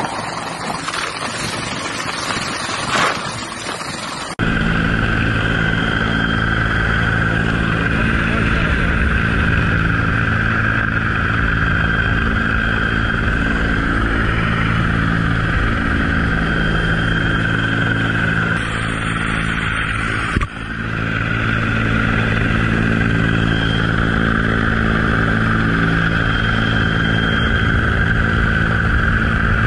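Wind buffeting the microphone at first. About four seconds in it changes to a helicopter's turbine whine and rotor running steadily, heard close from beneath it on the hoist cable, with a brief break about twenty seconds in.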